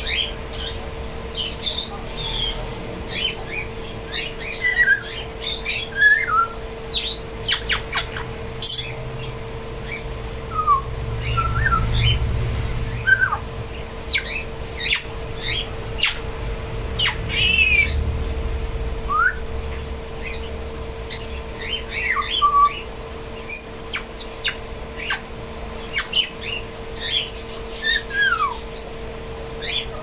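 African grey parrot making scattered short whistles that slide up and down in pitch, chirps and sharp clicks.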